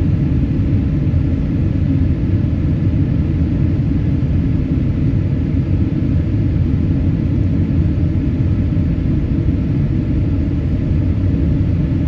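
Boeing 767-300ER cabin noise during takeoff: the engines under takeoff power and the rushing air make a steady, deep rumble heard from inside the passenger cabin.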